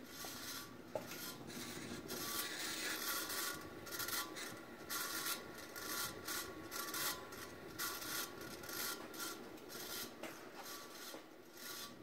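52-inch Hunter Studio Series Remote ceiling fan running, its motor making a steady rubbing, rasping noise with a thin whine, the level swelling and dipping unevenly; it sounds awful.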